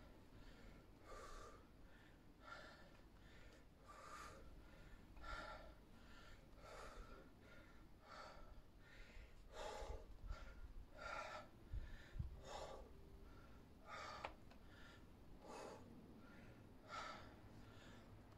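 A man breathing hard under exertion during overhead rifle lifts, one short forceful breath about every second and a half, in time with the lifts.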